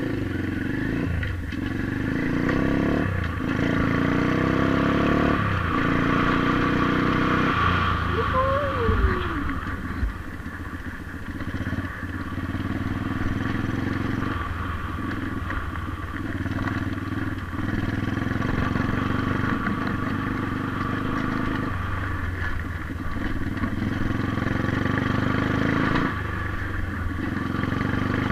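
Single-cylinder four-stroke engine of a 125cc pit bike running while ridden. The engine note drops off and picks up again every few seconds as the throttle is rolled off and opened.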